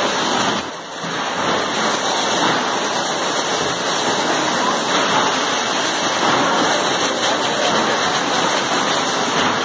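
Steady rushing noise of an 8-head oil filling machine at work, oil pouring into plastic jerry cans. It dips briefly about a second in.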